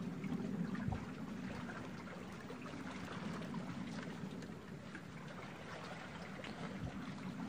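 Steady trickling and lapping of seawater around a wooden fishing boat: an even wash with faint small ticks, no single event standing out.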